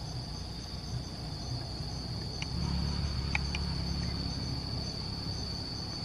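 Steady high-pitched drone of insects, with a few brief faint chirps in the middle and a low rumble underneath that swells from about two and a half seconds in.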